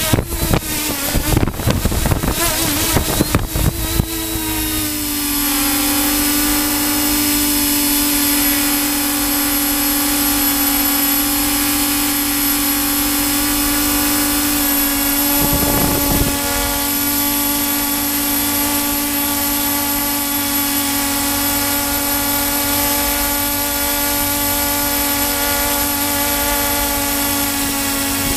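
Onboard sound of a radio-controlled model aircraft's motor and propellers. It is choppy and uneven for the first four seconds, then settles into a steady, even drone, with a brief rush of noise about halfway through.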